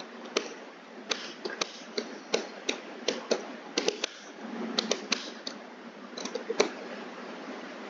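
Computer keyboard keys being typed: an uneven run of sharp clicks as a line of text is entered, over a steady hiss.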